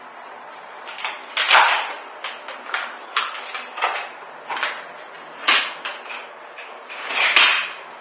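Mosaic parquet panels slid and shuffled by hand across the floor and set down, a run of short scrapes with three louder knocks, about a second and a half in, midway and near the end.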